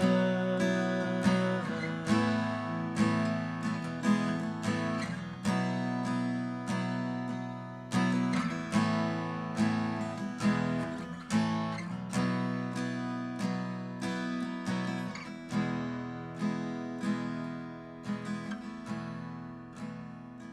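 Acoustic guitar strumming slow chords, about one strum a second, with no singing. It grows steadily quieter toward the end as the song dies away.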